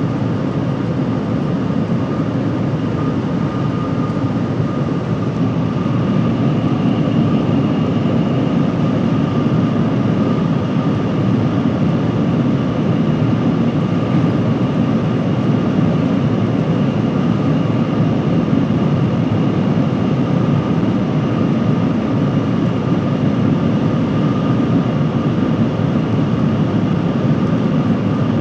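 Cabin noise of the Shanghai Transrapid maglev train running at about 431 km/h: a loud, steady low-pitched noise with two faint steady high tones over it, a little louder from about six seconds in.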